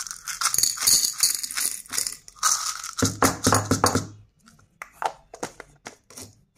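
Small hard sugar candies rattle in a plastic capsule and pour into a plastic bowl for about four seconds. A few light plastic clicks follow as the capsule halves are handled and fitted together.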